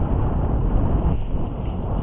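Strong wind buffeting the phone microphone in a steady, fluttering low rumble.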